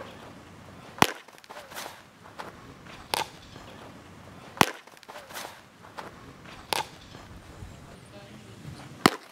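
A baseball smacking into a catcher's mitt three times, a sharp loud pop each time, about four seconds apart. Fainter knocks fall in between.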